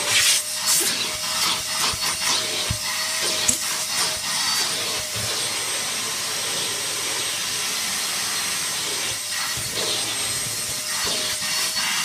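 Cheap ash vacuum cleaner running at full power: a steady rush of air with a constant motor whine, and a few light knocks in the first seconds.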